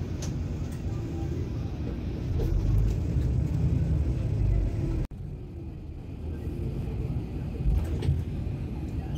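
Low, steady rumble of a moving passenger vehicle heard from inside the cabin, swelling for a couple of seconds near the middle. It cuts out sharply about five seconds in at an edit, then the same rumble resumes.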